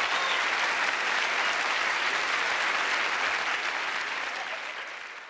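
Large theatre audience applauding, a steady dense clapping that fades away near the end.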